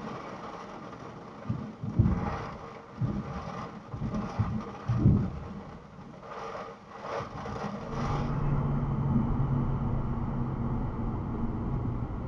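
Storm noise on a parked car: heavy rain with irregular low thumps and rumbles. About 8 s in it changes to the steady engine and road hum of the Audi S3 driving, heard from inside the cabin.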